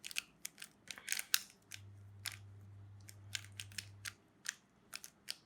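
Plastic Rubik's cube being scrambled by hand: irregular sharp clicks as the layers are turned, some in quick pairs.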